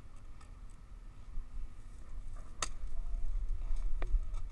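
Low rumble of movement on the microphone with faint ticks, and two sharp clicks about two and a half and four seconds in.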